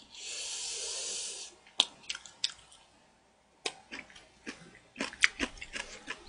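A hiss lasting about a second and a half, then close-miked chewing and eating sounds, with scattered clicks of metal chopsticks against a rice bowl while rice is scooped up and eaten.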